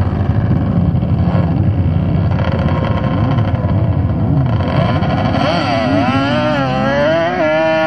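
Sport quad engines revving on the start line, then launching hard about five or six seconds in and accelerating away, the engine note climbing in pitch with a couple of drops between rises as the gears change.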